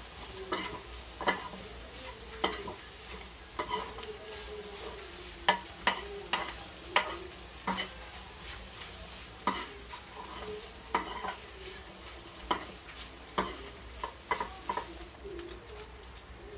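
A utensil stirring and scraping chicken and vegetables in a pan of hot oil, knocking irregularly against the pan over a steady sizzle.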